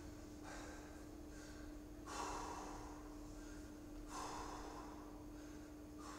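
A man's heavy breathing, winded from exertion, with a deep breath about every two seconds.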